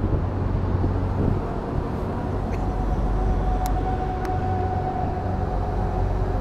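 Urban street ambience: a steady low rumble of road traffic, with a faint held tone near the middle and a few light clicks.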